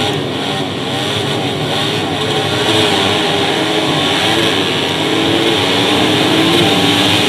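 Engines of 150 cc four-stroke underbone racing motorcycles revving hard, with a pitch that wavers up and down and climbs near the end.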